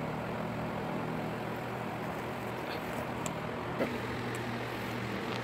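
Steady low machine hum with an even hiss, and a few faint clicks in the second half.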